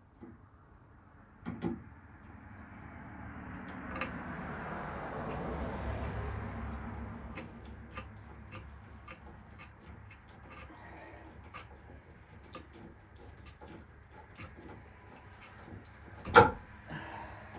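Scattered small clicks and knocks, as of metal hinges and screws being handled, with one sharp loud knock near the end. A low rumbling swell rises and fades in the first half.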